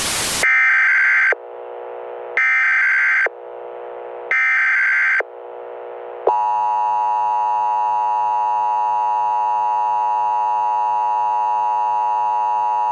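Emergency Alert System broadcast tones: a short burst of TV static gives way to three SAME header data bursts, each about a second long with about a second between them. About six seconds in, the steady, harsh two-tone EAS attention signal begins, warning of an emergency message to follow.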